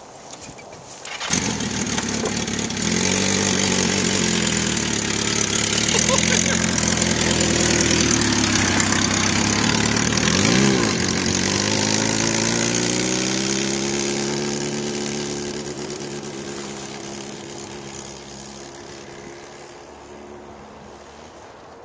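Kawasaki motorcycle with a sidecar starting up about a second in, then running steadily. About halfway it gives a brief rev and pulls away, the engine fading as it moves off.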